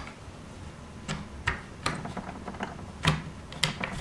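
Irregular sharp clicks and light knocks as the two shell halves of a Tippmann TiPX paintball pistol are pulled apart and its internal parts shift, about half a dozen in all, the loudest about three seconds in.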